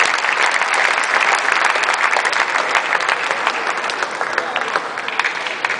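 Table tennis arena crowd applauding a point just won, dense clapping with some voices mixed in. The applause slowly dies down toward the end.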